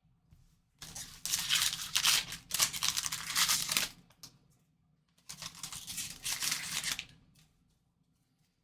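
Foil trading-card pack wrapper being opened: two stretches of crinkly ripping and rustling, the first about three seconds long and the second about two.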